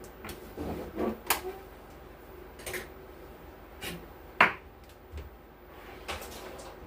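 Several scattered light clicks and knocks from handling objects and tools, the sharpest about four and a half seconds in.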